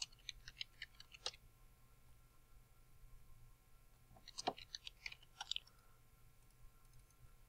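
Computer keyboard typing: two short runs of quick key clicks, one at the very start and another about four seconds in.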